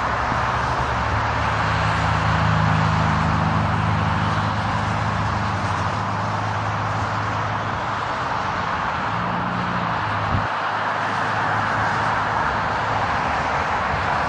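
Twin-engine jet airliner on its takeoff roll at takeoff thrust, heard from down the runway as a steady broad rush with a low hum under it that fades after the first several seconds.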